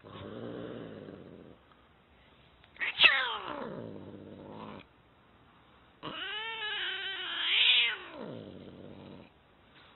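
Domestic tabby cat yowling three times: first a low moan, then a loud call about three seconds in that falls steeply in pitch, then a longer wavering call that drops away at the end.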